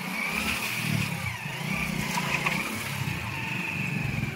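Motorcycle engine running at low speed while the bike is ridden over rocks and a muddy rut, the throttle rising and falling unevenly.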